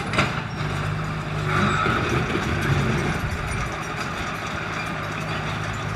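Diesel engine of a heavy earthmoving machine running steadily with a low hum, and a brief sharp click early on.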